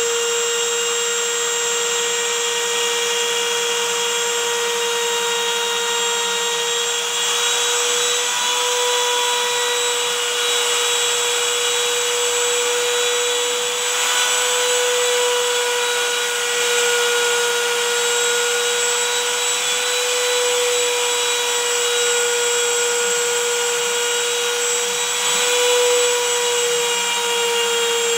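CNC router spindle running with a steady high whine while its bit cuts decorative grooves into a laminated panel, with a hiss of cutting noise under the whine.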